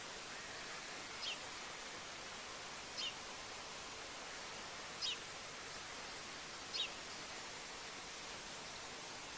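Steady hiss of an outdoor webcam microphone, with four short, high, falling bird chirps spaced about two seconds apart.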